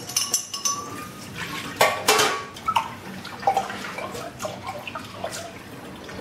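A metal spoon clinking and scraping inside a ceramic mug, then water splashing and dripping into a stainless steel sink as the mug is emptied and rinsed out.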